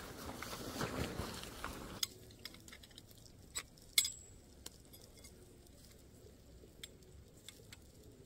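Tent fabric rustling as it is shaken out and spread on the ground. It drops off abruptly about two seconds in, followed by scattered light clicks of tent pole sections being fitted together, the sharpest about four seconds in.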